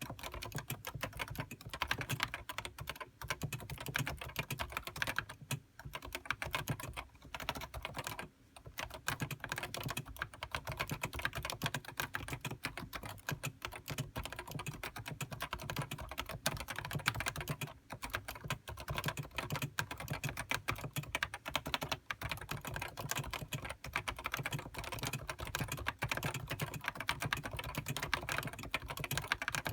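Fast, continuous typing on a Topre Realforce HiPro keyboard, its electro-capacitive rubber-dome switches giving a soft, muted clack, with a few brief pauses.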